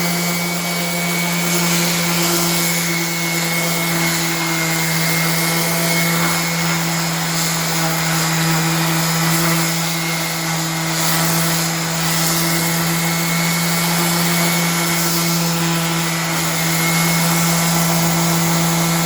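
Electric sander with a dust bag running steadily against reclaimed wood: a constant motor hum over a dense, even hiss from the pad on the wood.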